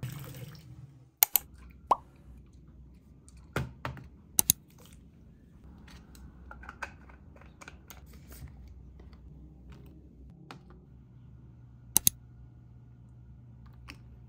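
A bathroom tap runs briefly, then skincare bottles and jars are handled and set down on a tray: sharp separate clicks and knocks, including two quick double clicks, the loudest about twelve seconds in.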